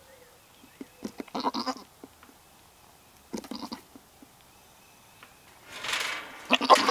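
A goat giving short, rough bleats, four in all, a second or two apart.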